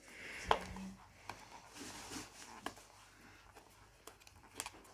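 Tealight packaging being handled and picked at as it resists opening: a few scattered sharp clicks among soft rustling, the loudest click about half a second in.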